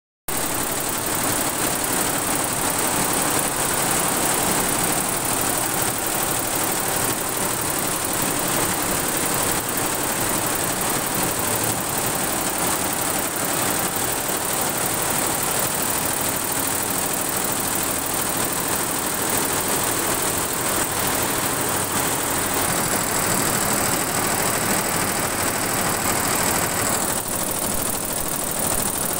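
Multi-head industrial embroidery machine running, its many needle heads stitching in a fast, even mechanical rattle with a steady high whine above it.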